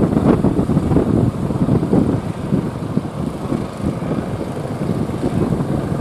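Wind buffeting the microphone in irregular gusts, over the rush of breaking surf.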